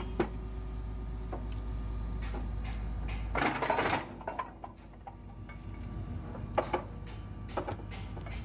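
Excavator engine running as the machine hoists a vibratory pile-driving hammer on chains, with sharp metal clanks from the chains and hammer. About three and a half seconds in there is a short, louder scraping rush as the hammer's base drags on the dirt, and the low engine hum drops back after it.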